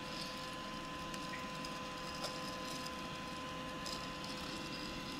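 Steady quiet machine hum with a faint constant high tone, and two light clicks.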